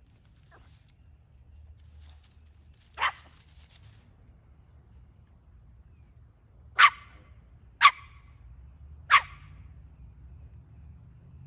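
West Highland white terrier barking: four short, sharp barks, a single one about three seconds in, then three more about a second apart a few seconds later.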